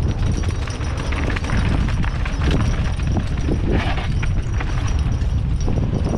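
Mountain bike rattling and clattering over a rough dirt trail on a fast descent, with a stream of irregular knocks from the frame and wheels, over a heavy low rumble of wind on the microphone.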